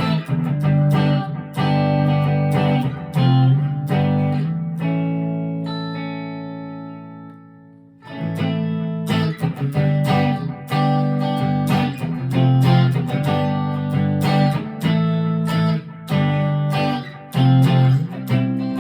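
Chapman ML3 Pro Modern electric guitar played through an amp, a run of picked notes and chords. About five seconds in, a chord is left ringing and fades away over some three seconds, then the playing starts again.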